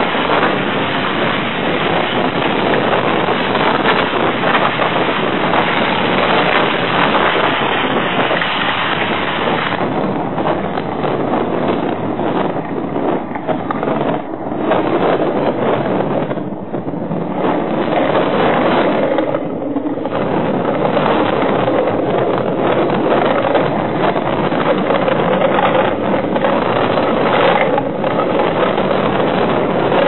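Storm wind and driving rain on a security camera's microphone: a loud, dense rushing noise that surges and eases. Toward the end a steady low hum joins it.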